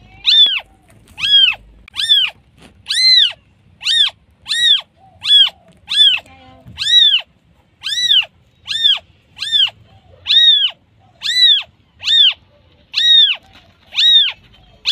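Newborn kitten mewing over and over, high thin cries that each rise and fall in pitch, more than one a second without a pause: a newborn calling for its mother.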